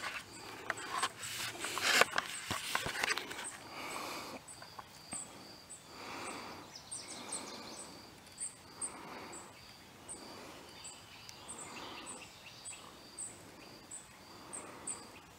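Evening insect chorus: a steady high trill, with a short high chirp repeating about twice a second. A few clicks and rustles of handling come in the first three seconds.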